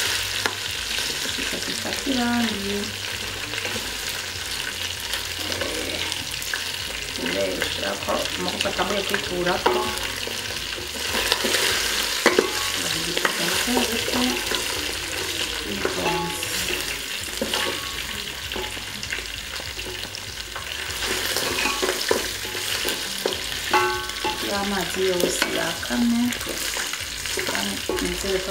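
Meat and onions frying and sizzling in a metal pot, stirred and scraped about with a wooden spatula.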